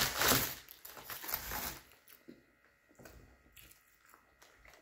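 Waxed-paper sandwich wrapper crinkling and tearing as it is pulled open, for about the first two seconds. After that only faint scattered chewing sounds.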